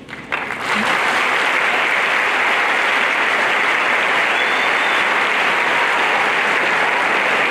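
Large audience applauding, swelling up within the first second and then holding steady and loud.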